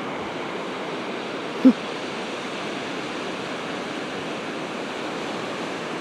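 Lake Erie waves breaking on the shore, a steady rushing wash of surf. A brief short voice sound comes about one and a half seconds in.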